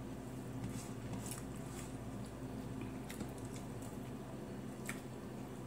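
Quiet eating sounds of a person eating rice and grilled pork liver by hand: soft chewing and small wet clicks from the mouth and from fingers picking at the food, over a steady low hum.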